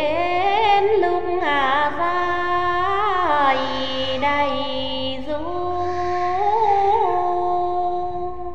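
Women's voices singing sli, the Nùng people's unaccompanied folk song, in long held notes that glide and waver between pitches.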